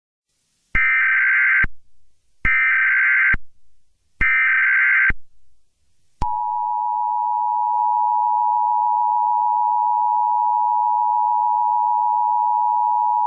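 Emergency Alert System broadcast alert: three identical digital SAME header bursts, each under a second long, followed by the steady two-tone attention signal that starts about six seconds in and holds.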